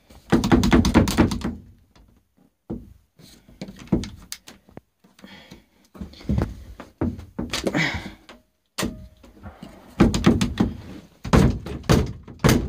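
A stuck wooden RV bathroom door thunking and rattling against its frame in irregular bursts as its latch is worked by hand to get it open.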